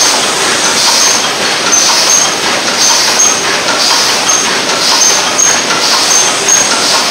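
Double-wall paper cup forming machine running: a steady loud mechanical clatter with a hiss that repeats about once a second and short high-pitched tones in time with it.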